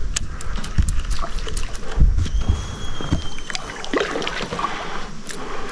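Kayak being handled and dragged on the shore: a run of knocks and scrapes over a low rumble, easing after about three seconds. A faint high whistle-like tone runs briefly past the middle.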